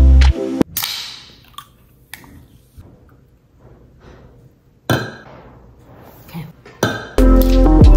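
A can of seltzer is cracked open, a sharp hiss of fizz that fades over about a second, followed by quiet sips and small clinks of the can. Another sharp sound comes about five seconds in, and a knock of the can on the stone counter follows just before music comes back in.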